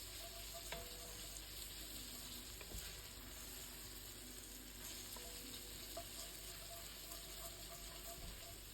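Onion and tomato purée base sizzling softly in the pan as it is stirred and cooked out, with a few faint clicks of the spoon.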